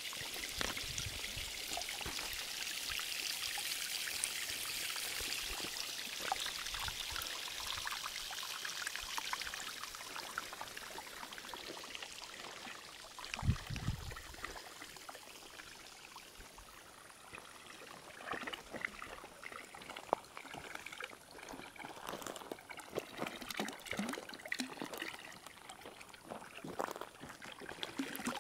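Water from a fountain spout pouring and trickling into a concrete trough, a steady splashing hiss. A short low thump comes about halfway through, and the later part has more scattered, sharper splashes.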